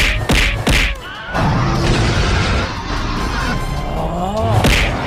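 Cartoon fight sound effects over background music: a quick run of punch hits, about three a second, in the first second, then a steadier rushing noise and one more hit near the end.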